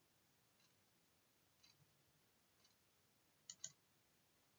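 Near silence: room tone, with a few very faint clicks, one about two seconds in and a close pair near the end.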